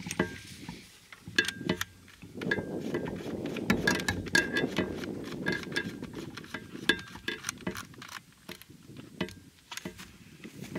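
Handling noise from a Hatfield SAS semi-automatic shotgun being held and moved about: a run of irregular sharp clicks and small metallic clinks, some ringing briefly. Under them is a rustling that is loudest through the middle stretch.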